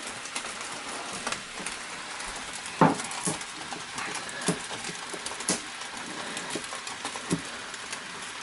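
Scattered clicks and knocks of a small jar with a metal screw lid being handled and twisted open, with the sharpest knock about three seconds in.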